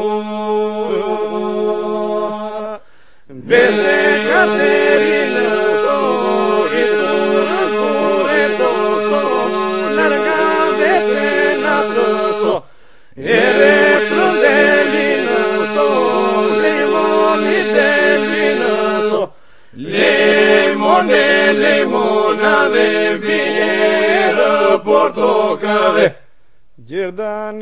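Albanian iso-polyphonic folk song sung a cappella by a group of voices: a steady held drone under lead voices that weave and bend above it. The singing breaks off briefly between phrases, four times.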